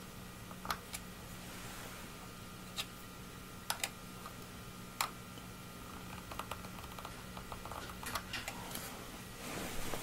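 Small Phillips screwdriver clicking and scraping against the captive screws of an iMac's metal RAM-access cover: a few scattered sharp clicks, then a quicker run of small clicks over the last few seconds, as the tip fails to loosen the stiff screws. Rustling handling noise rises near the end.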